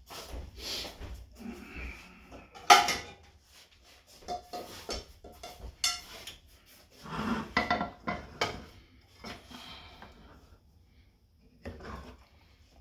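Serving utensil scraping and knocking against a pan and plate as pasta is dished out, in irregular clatters with the loudest knock about three seconds in and another burst of clatter near the middle.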